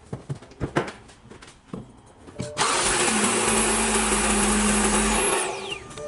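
A BMW inline-six being started: a loud, steady whirring burst begins about halfway through, lasts nearly three seconds, and dies away with a falling whine. Light clicks and knocks come before it.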